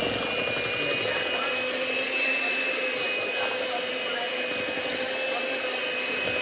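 Electric mixer running steadily with a constant motor whine, beating the cake batter of creamed butter, sugar and eggs.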